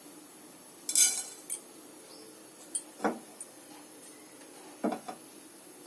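Metal kitchen utensils clinking and knocking against a pan and containers: several separate strikes, the loudest about a second in.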